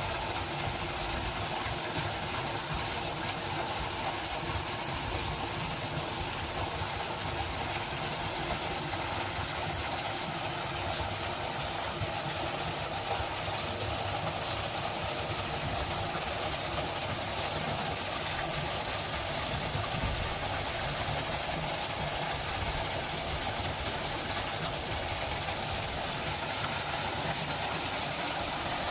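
Steady, unbroken nature ambience of running water and wind, with a continuous frog chorus.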